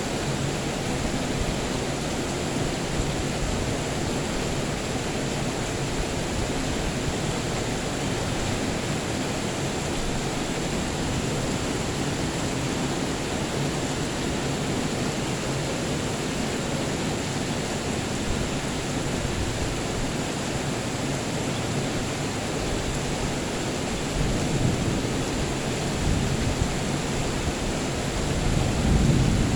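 Steady, even rain noise. Low rumbles of thunder swell in near the end.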